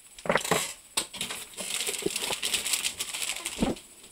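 Crinkling and rustling of plastic snack wrappers being handled, with a few sharp knocks and clicks in the first second and another near the end.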